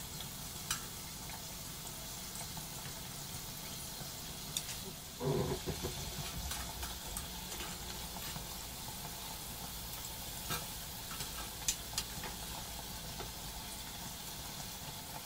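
Shrimp toast deep-frying in hot oil turned up high to brown the bread: a steady crackling sizzle. Wooden chopsticks click now and then as the pieces are turned, with one brief louder bump about five seconds in.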